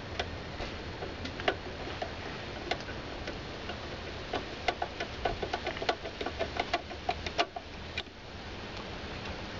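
Sharp clicking as a threaded screw is driven into a LiftMaster garage door opener's frame with a hand-turned 1/4-inch nut driver: scattered clicks at first, then a quicker run of several a second, stopping near the end.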